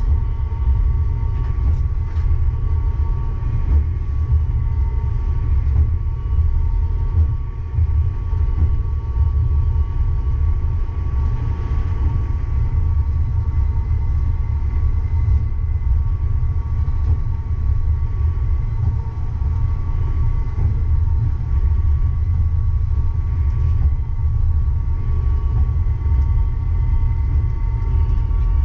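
Uijeongbu Light Rail train, a rubber-tyred Siemens VAL 208 car, running between stations: a steady low rumble with a constant whine from the traction drive, heard from inside the car.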